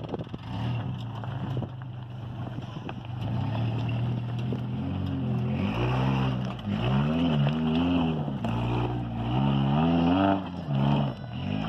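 1986 Toyota 4Runner's 22RE four-cylinder engine working hard as the truck climbs a loose rock slope, its revs rising and falling again and again from about halfway through.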